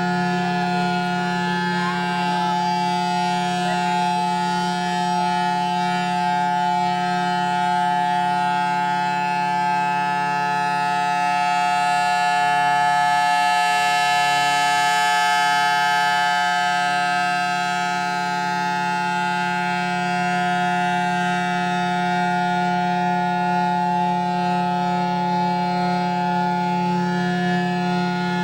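Federal Signal Thunderbolt 1000T civil defense siren, reverse-wired, sounding a steady note at full speed. The pitch holds constant throughout, with a slight swell in loudness around the middle.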